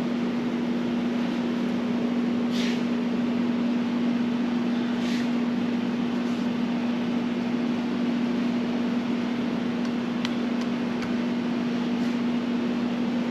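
Steady motor hum with one constant low tone over an even rush of noise, and a few faint short hisses.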